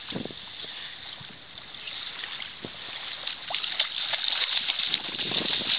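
Steady rushing beach noise, with scattered knocks and bumps, growing louder toward the end.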